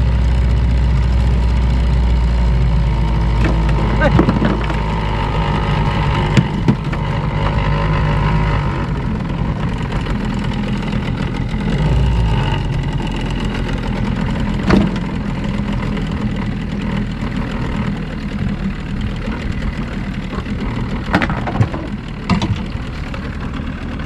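A boat's engine running steadily, easing off about halfway through, with voices talking under it and a few sharp knocks.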